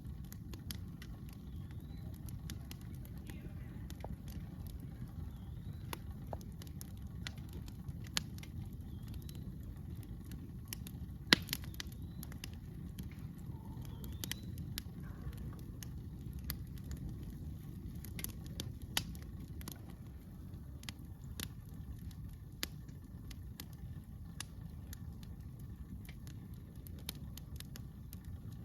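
Wood campfire crackling, with scattered sharp pops over a steady low rumble. One much louder pop comes about eleven seconds in.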